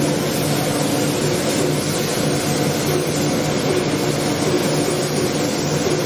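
Spray-painting workshop machinery running steadily: a low hum with an even hiss over it.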